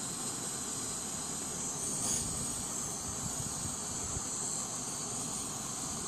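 Steady hiss of a propane canister stove burning at full under a charring tin, with flammable gas from the scorching cloth venting around the tin and burning, swelling slightly about two seconds in.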